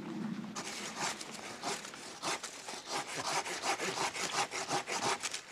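Silky Gomboy 240 folding pull-saw cutting through a green hazel stem: quick, even back-and-forth strokes that start about half a second in and keep going.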